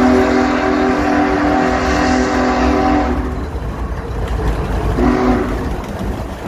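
A locomotive's multi-note chord horn sounds a long blast that cuts off about three seconds in, then a short blast around five seconds in, over the low rumble of the passing train.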